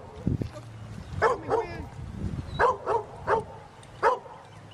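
A dog barking in short, sharp barks, about six spread over a few seconds with pauses between: a dog stranded in a drifting canoe barking for help.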